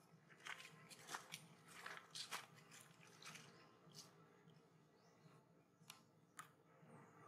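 Faint crunching clicks of a macaque biting and chewing at a piece of fibrous food, many in the first half, then a few single clicks.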